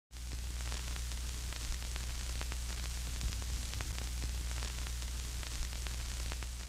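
Static: a steady hiss over a low electrical hum, with scattered crackles all through. It starts suddenly out of silence.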